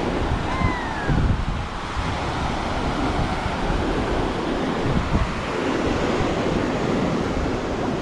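Ocean surf washing onto a sandy beach, with wind buffeting the microphone in uneven gusts. A brief falling whistle sounds about half a second in.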